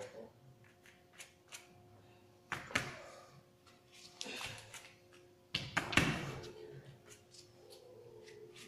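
Dull thuds of bare feet and hands landing on yoga mats over a wooden floor as students kick up into handstands, three of them, the loudest about six seconds in.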